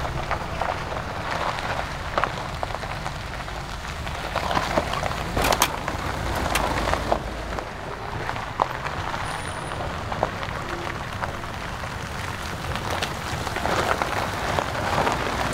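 SUVs rolling slowly along a gravel road: tyres crunching and popping on loose stones over a low engine rumble, louder near the end as one passes close.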